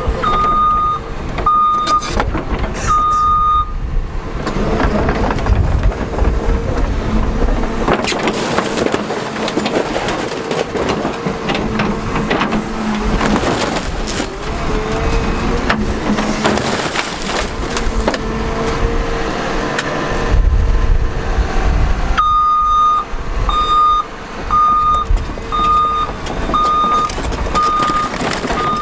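Excavator running under load, its engine note and a wavering whine rising and falling, with scattered knocks. Its travel alarm beeps at the start and again steadily over the last several seconds.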